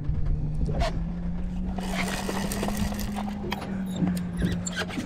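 Clicking and knocking from a TS 50W II lever-drag fishing reel being worked under load while fighting a fish, over a steady low hum.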